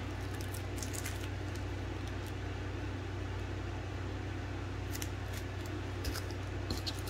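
Steady low hum, with a few faint crinkles from a small plastic bag of square resin diamond-painting drills being handled and squeezed.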